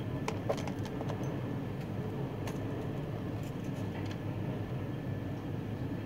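Hands handling thin insulated wires and small parts on a workbench: a few faint light clicks and taps, mostly in the first second or so, over a steady low hum.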